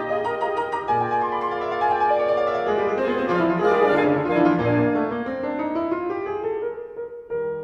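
Instrumental background music led by piano, a run of quick notes with no train sound standing out.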